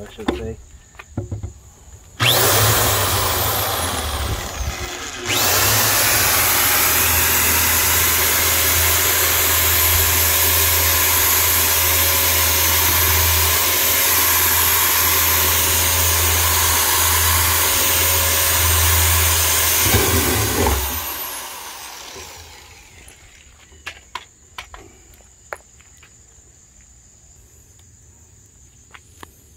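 Corded drill with a side handle boring through the wall of a plastic barrel. It runs for about three seconds, stops briefly, then runs steadily for about fifteen seconds before winding down. After it stops there are a few light clicks from handling power cords.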